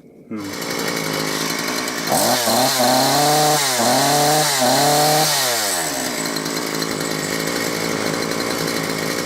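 Gardenline two-stroke petrol chainsaw running: it idles, is revved up three times in quick succession about two seconds in, then drops back to a steady idle.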